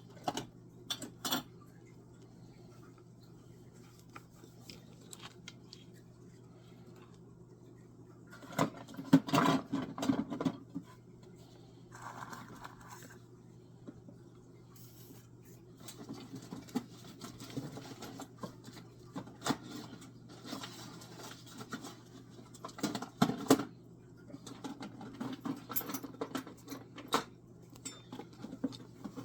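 Small hard objects being handled and set down: scattered clicks and clatters, busiest about a third of the way in and again near the end, over a low steady hum.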